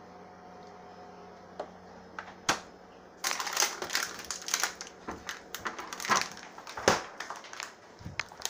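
A faint steady hum, then from about three seconds in a dense run of close crackles, rustles and clicks: handling noise from a camera being held or carried with its lens covered.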